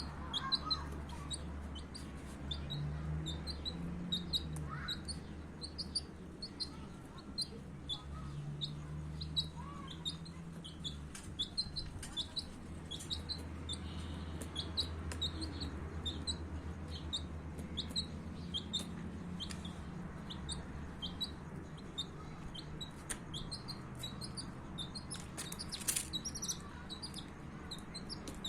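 Baby chicks peeping continuously, a rapid string of short high chirps, several a second, over a low steady hum.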